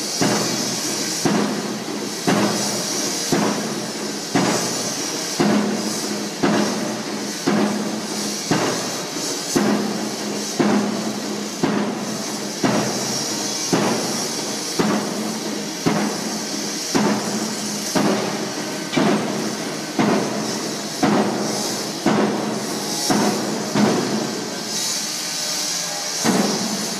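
Pile-driving rig's hammer striking a pile in a steady rhythm, about one blow a second, over the rig's steady engine hum and hiss. The blows stop near the end.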